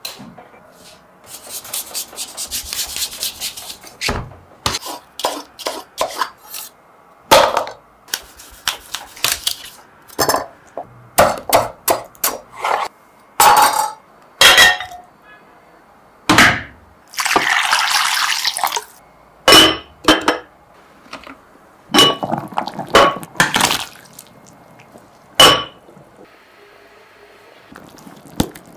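Food preparation at a wooden chopping board: a run of sharp knocks and clinks from a knife on the board and utensils against dishes, with two longer hissing spells, one near the start and one about two-thirds of the way through.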